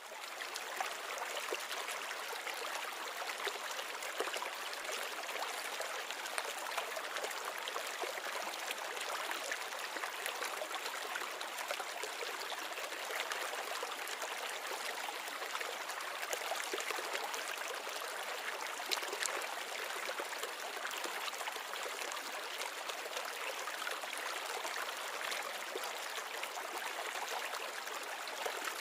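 Water in a nano reef aquarium trickling steadily, a constant rushing hiss of circulating water.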